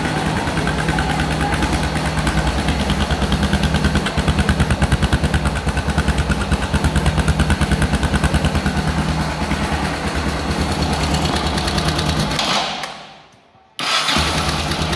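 Yamaha XT 600's single-cylinder four-stroke engine idling with an even beat of exhaust pulses, heard close to the silencer. Near the end it fades out and dies, then is started again at once and runs; the owner then finds the fuel tap closed, so it is dying for lack of fuel.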